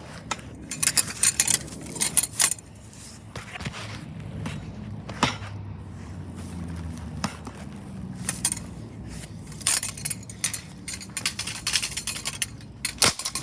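Clusters of light clinks and rattles from the broken plastic and glass parts of a light-socket ceiling fan being knocked about, once near the start and again through the second half.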